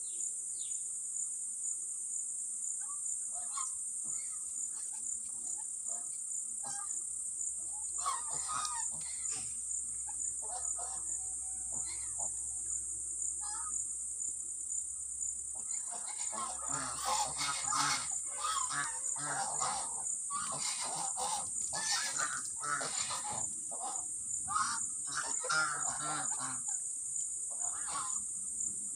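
A flock of domestic geese honking at a person they are squaring up to, a sign of their aggressive mood. The calls start scattered, then become a busy run of overlapping honks from about halfway through. A steady high insect buzz runs underneath.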